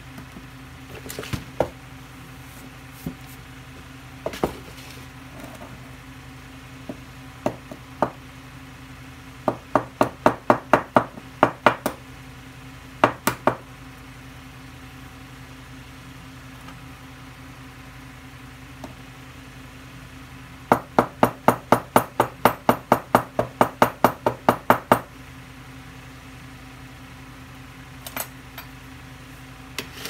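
Sharp taps on the sides of a small soil-filled terracotta pot, in quick runs of about four taps a second: a run a third of the way in and a longer one of some eighteen taps about two-thirds in, with a few single taps between. The tapping settles the potting mix and drives out trapped air.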